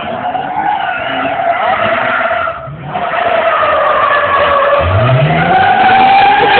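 Rally car sliding on tarmac, its tyres squealing in long, wavering tones that break off briefly about two and a half seconds in. Its engine revs up about five seconds in under the squeal.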